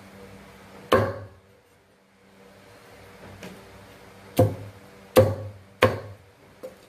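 Heavy cleaver chopping through bone-in steamed rat on a thick wooden chopping block: one hard strike about a second in, three more in quick succession near the end, and a lighter tap just after them.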